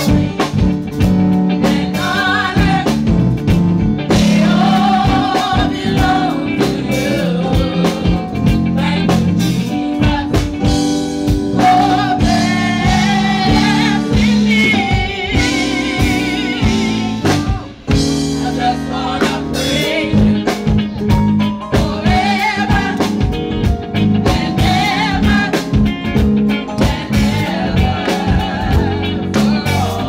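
Gospel choir singing live with a band, drum kit and electric bass keeping a steady beat under the voices.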